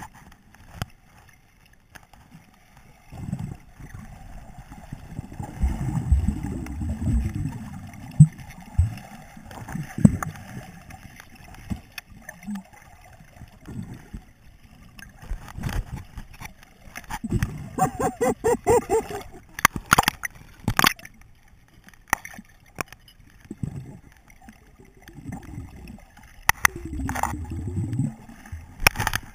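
Water heard underwater: muffled gurgling, bubbling and sloshing from swimmers moving around, in uneven low surges, with a couple of sharp knocks about two-thirds of the way through.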